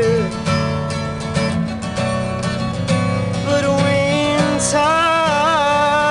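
Acoustic guitar strummed steadily, with a man singing long, wavering held notes through the second half.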